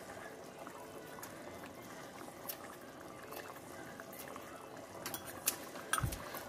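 Pot of rigatoni pasta boiling hard under a mesh splatter screen, a steady bubbling with scattered small pops. Near the end come a few sharper clicks and a brief low thump.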